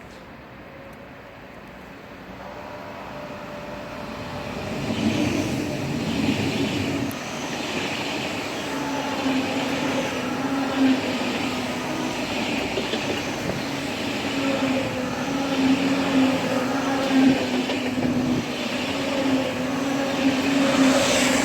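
Intercity Express (ICE) electric train passing. It grows louder over the first few seconds, then runs on as a steady hum with a regular rhythmic pulse of about one beat a second.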